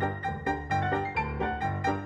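Background music: a light piano or keyboard tune playing a quick run of notes.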